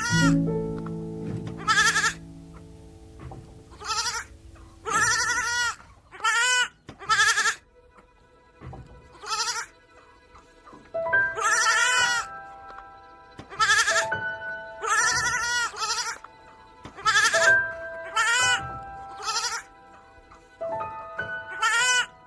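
Sheep bleating, then goats bleating, one quavering bleat every one to two seconds, over soft background music with held notes.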